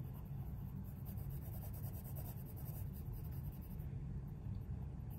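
Coloured pencil scratching on paper in many short strokes as a small area is filled in, over a steady low hum.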